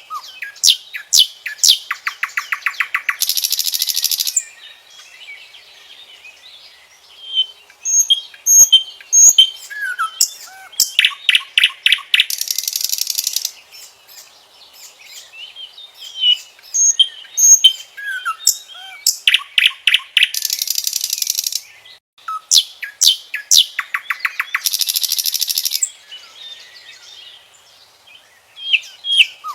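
Common nightingale singing: phrases of sharp whistles, clicks and short notes that build into long, fast, rattling trills, with brief pauses between phrases.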